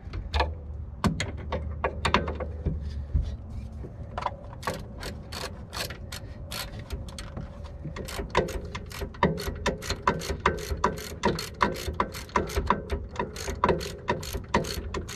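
Socket ratchet clicking as the rear brake caliper bracket bolt is run in. The clicks are sparse at first, then come steadily at about three a second from a few seconds in.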